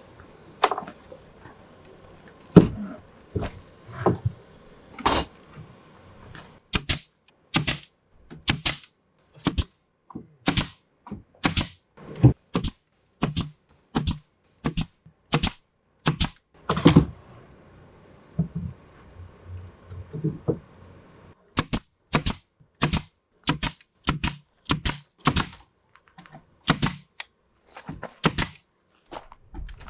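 Nails being driven into wood during framing: a long run of sharp strikes, about one to two a second, with short pauses between groups.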